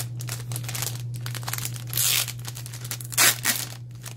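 Thin plastic packaging bag crinkling as it is handled and pulled open, with two louder crackling rips about two seconds and three seconds in.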